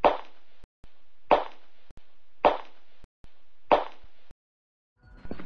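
Four evenly spaced sharp knocks about a second and a quarter apart, each over a patch of steady hiss that cuts off abruptly before the next: an intro sound effect. Music begins just at the end.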